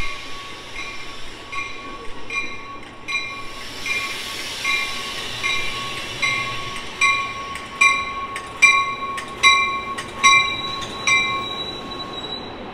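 A Metra commuter train's bell ringing steadily, a little more than one strike a second, louder as the cab car draws alongside, then stopping as the train halts. A high steady squeal comes in near the end as it brakes to a stop, over the low rumble of the train rolling in.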